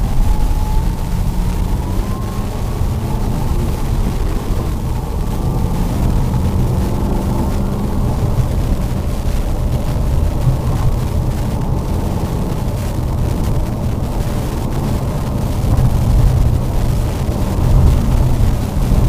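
Lada Vesta driving on snow: a steady low rumble of engine and tyres, with a faint whine that rises slowly in pitch over the first several seconds.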